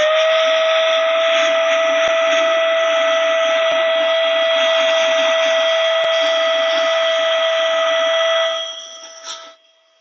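Small rechargeable handheld vacuum-duster motor running with a steady high whine and rushing air as its round nozzle is worked over keyboard keys. It winds up in pitch at the start, and the rush of air drops away about nine seconds in. A few faint ticks come from the nozzle on the keys.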